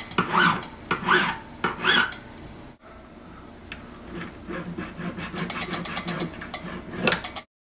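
A hand needle file rasps back and forth on a cast gold ring, smoothing off the spot where the casting sprue was attached. A few strong strokes are followed, after a brief break, by a run of quicker, lighter strokes that stops abruptly near the end.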